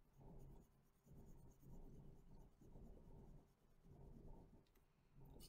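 Faint, repeated back-and-forth strokes of a crayon colouring on paper.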